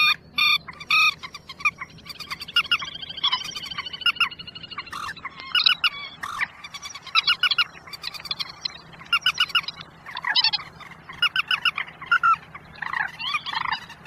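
Recorded bird-trapping lure of 'quốc biển' bird calls played back: short calls repeated in quick runs of three or four notes, again and again.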